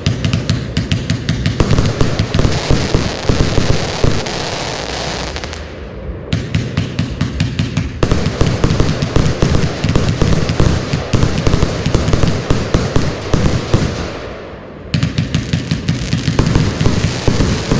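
A 227-shot compound firework cake firing rapid volleys of shots in three runs, with brief lulls about six and fifteen seconds in.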